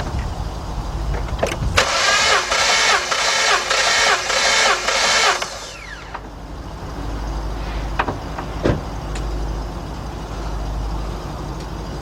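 Starter cranking the Jeep Liberty's 3.7 V6 for about three and a half seconds during a compression test, the engine not firing: a rhythmic whir that pulses about twice a second, then it stops.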